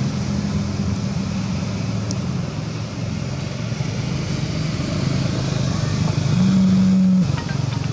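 A car engine running with a steady low hum over road noise. Near the end comes a single loud, steady low note lasting under a second.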